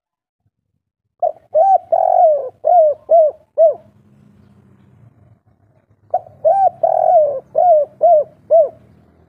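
Spotted dove cooing the 'kuk 3' song: two phrases of quick coos, one starting about a second in and another about six seconds in. Each phrase has about seven short notes, with a longer, louder one near the start.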